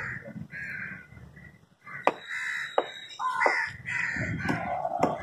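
Crows cawing repeatedly, with three sharp knocks of a cleaver chopping fish on a wooden log block: about two seconds in, a moment later, and near the end.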